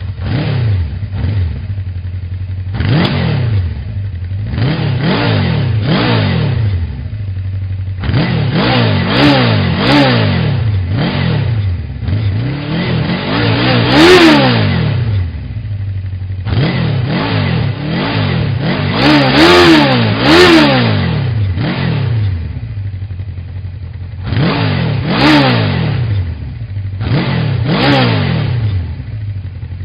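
Motorcycle engine being revved in repeated quick throttle blips over a steady idle, each blip a fast rise and fall in pitch, with a few harder revs about halfway through and again a few seconds later.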